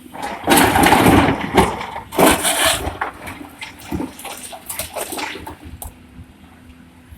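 Loads of stone being dumped, clattering and rumbling in two loud surges (about half a second in and just after two seconds), followed by smaller scattered knocks.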